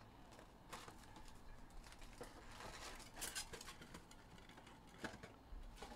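Faint rustling and scraping of a cardboard trading-card box as hands open it, pulling up its flap, with a few soft clicks and taps.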